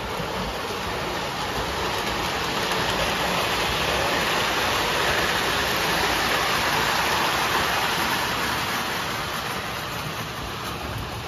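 O scale model train running along its track: a steady rolling noise of metal wheels on rail that grows louder as the cars pass close by around the middle, then eases off.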